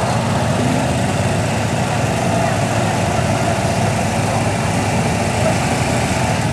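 Small garden tractor engine running steadily at a garden-tractor pull.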